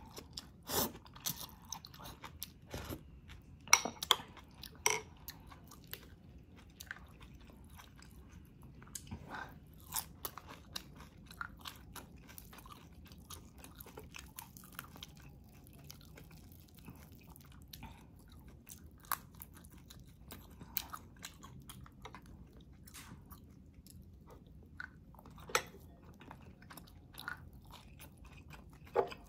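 A person chewing close to the microphone, eating spinach and pan-fried boneless milkfish (daing na bangus): irregular mouth clicks and smacks, most frequent in the first five seconds or so.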